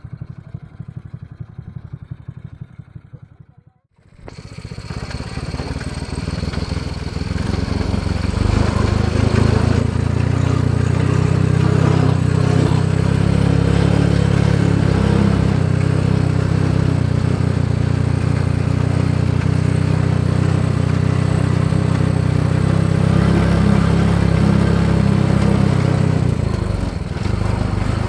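Homemade mini jeep's Honda Supra X 125cc single-cylinder motorcycle engine running. The sound cuts out abruptly about four seconds in, then comes back and rises to a loud, steady run, easing briefly near the end.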